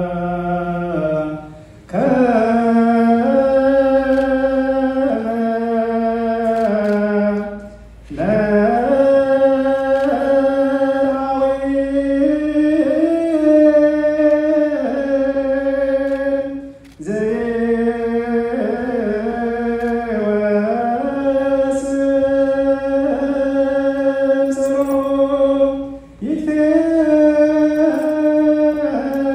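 Ethiopian Orthodox liturgical chant sung as one melody line in long held notes, breaking for breath four times between phrases.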